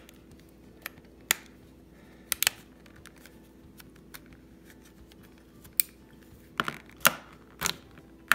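Scattered sharp plastic clicks and snaps as a plastic bread tie pries along the seam of a Samsung TV remote's snap-together case, working its plastic tabs loose. The clicks come singly and in small clusters, most of them a couple of seconds in and again near the end.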